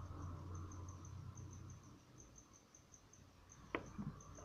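A sharp knock near the end, then a softer bump, as a metal watch-movement holder is set down on the workbench. A faint high chirping repeats several times a second in the background.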